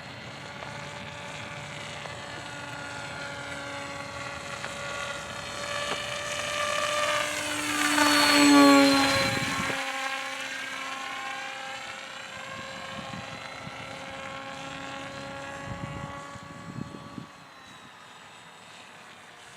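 Radio-controlled model airplane flying past, its motor and propeller drone growing louder, then dropping in pitch as it passes about eight to nine seconds in, before fading to a steady lower hum.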